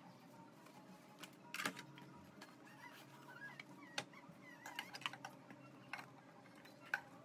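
Faint scattered clicks and taps, the sharpest about one and a half seconds and four seconds in, with a few faint wavering chirps in between.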